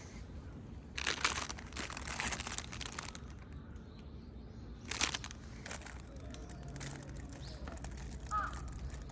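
Crinkling and rustling handling noise in two spells, a longer one about a second in and a short one about five seconds in, with a brief bird chirp near the end.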